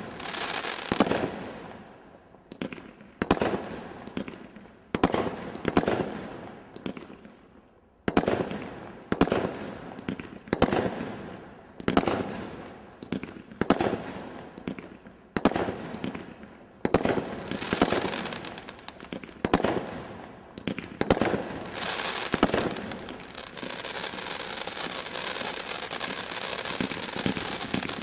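Brothers Grand Slam Cat 3 high-noise firework cakes firing: a string of sharp shots about one a second, each followed by a fading crackle. Near the end the shots run together into a dense, continuous crackling.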